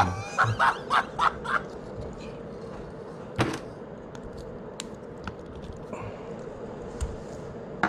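Nail clippers snapping shut on thick braided fishing line: a sharp click about three and a half seconds in and another at the very end, with a few faint ticks and a light tap between. The braid is too thick to cut cleanly.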